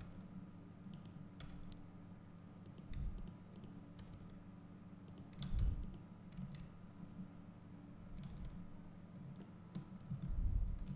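Scattered clicks of a computer mouse and keyboard over a steady low hum, with a few soft low thumps.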